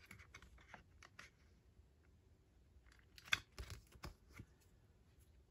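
Faint clicks and rustles of Pokémon trading cards being handled and set down, with a sharper tap about three seconds in.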